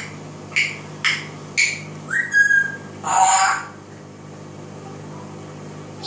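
African grey parrot whistling: a quick run of short chirps about two a second, one sliding up into a held note, then a longer, louder call about three seconds in.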